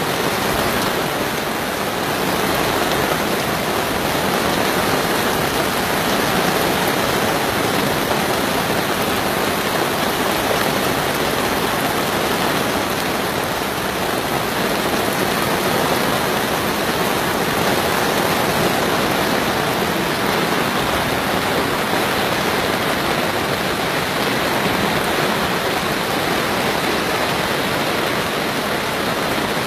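Heavy downpour: dense, steady rain pouring down without a break.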